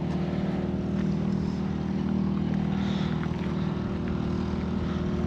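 A boat's engine running steadily at low speed, a constant low hum with no change in pitch.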